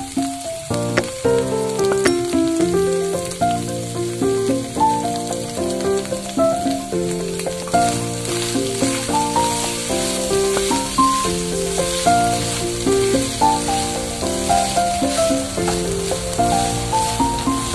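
Minced meat sizzling in a frying pan as it is stirred, under background music with a stepping melody of notes.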